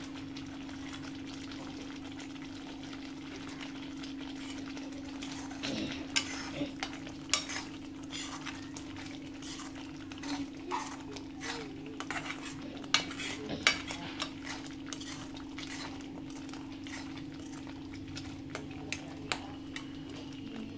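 A metal spatula stirs thick masala paste in an aluminium kadai, scraping and clinking against the pan irregularly from about six seconds in. A steady low hum runs underneath.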